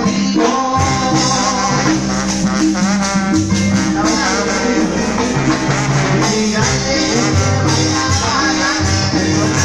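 Live Argentine cumbia band playing, with a keyboard melody over held bass notes and percussion.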